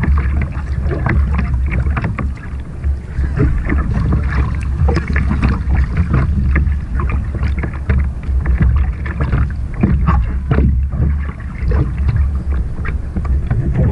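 Choppy sea water slapping and splashing against a surf kayak, with paddle strokes in the water, over a steady low rumble of wind on the microphone.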